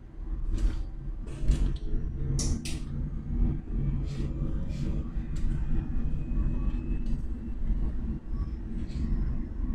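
Cabin noise inside a small electric minibus on the move: a steady low rumble from the road, broken by repeated sharp clicks and rattles. A faint whine rises slowly in pitch through the middle of the stretch.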